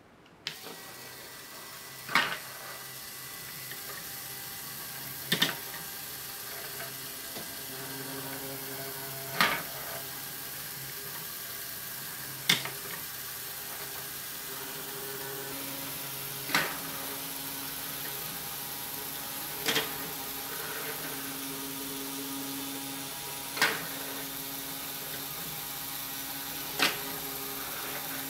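A LEGO Power Functions motor starts about half a second in and runs steadily through plastic Technic gears. Over the hum come eight sharp plastic clacks, about every three to four seconds, as the small figure on the axle rolls over.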